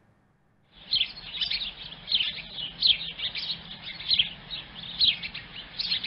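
A flock of small birds chirping, many short, high chirps overlapping one another, starting about a second in.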